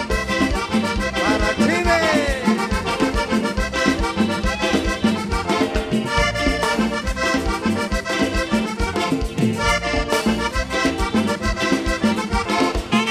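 A live Latin dance band playing through a large concert sound system, with a steady beat and busy melody lines.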